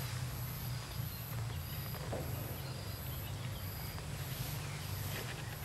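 An insect chirping in short, even, high-pitched pulses, about three every two seconds, over a steady low hum.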